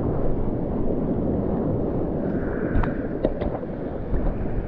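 Surfboard planing through broken whitewater, a steady rush of foaming water mixed with wind buffeting the action camera's microphone. A few sharp clicks come about three seconds in.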